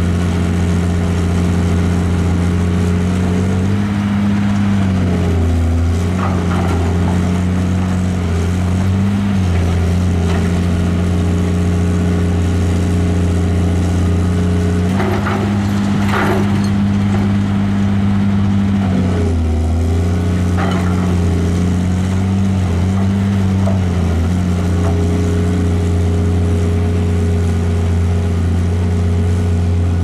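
Caterpillar 330C hydraulic excavator's diesel engine running steadily under working load, its note rising and dipping several times as the boom and bucket are worked. A few scraping clatters from the bucket in the mud, the loudest about halfway through.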